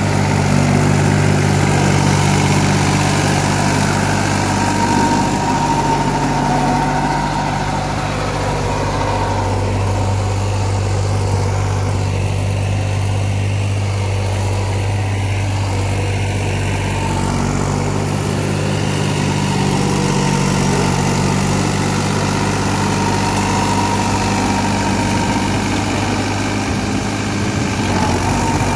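New Holland 3600-2 tractor's three-cylinder diesel engine running steadily while pulling a rotary tiller through the soil, its note dipping and rising slightly partway through.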